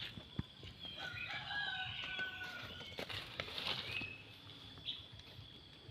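Faint bird calls: high chirps and a long drawn-out call of over a second starting about a second in, with a few light knocks.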